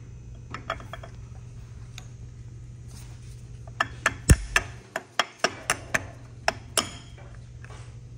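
Rubber mallet tapping a Mile Marker locking hub body into a Spyntec hub conversion to seat it: about ten sharp knocks over some three seconds, starting near the middle.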